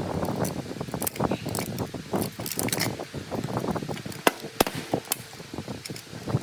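Metal parts being worked by hand: a run of irregular clicks and knocks, with two sharper clicks a little past four seconds in.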